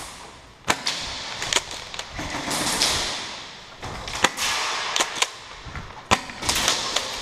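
Airsoft gunfire: several sharp, irregularly spaced snaps over a steady background hiss.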